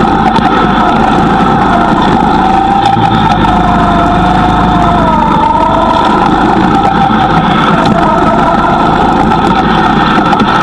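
Loud go-kart engine running continuously, its note rising and falling with the throttle as the kart drives.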